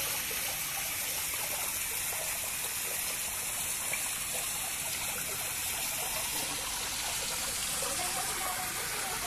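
Steady rush and splash of water falling into a garden fish pond from its waterfall feature.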